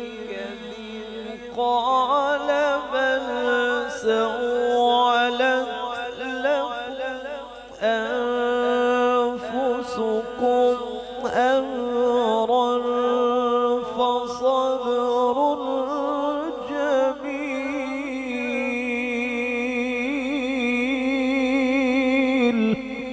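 A male Quran reciter (qari) chanting in melodic tajweed style into a microphone, with long drawn-out phrases and wavering ornaments. A long held high note in the last few seconds breaks off just before the end.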